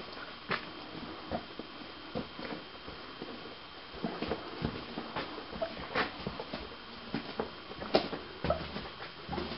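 Footsteps crunching irregularly on loose rock in a mine tunnel, with scattered small clicks and knocks of stones underfoot.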